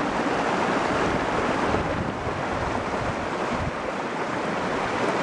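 Small mountain stream cascading over rocks: a steady rush of water.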